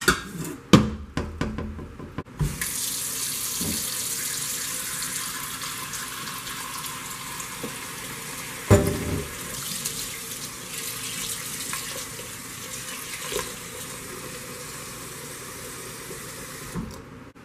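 A few metal knocks and clatters as the stainless steel Instant Pot inner pot is handled, then a tap running steadily into the pot in a stainless steel sink, filling the burned pot with soapy water. One loud knock comes about halfway through, and the water stops shortly before the end.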